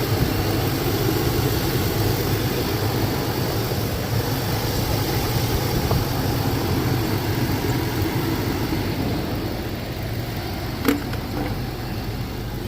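2002 Chevrolet Tahoe's V8 engine idling steadily, running as it should with its animal-chewed wiring repaired. A single sharp click about eleven seconds in.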